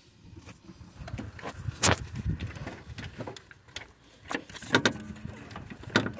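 Irregular clicks and knocks of hands and metal parts being handled around an alternator in a car's engine bay. The sharpest comes about two seconds in, and a few more come near the end.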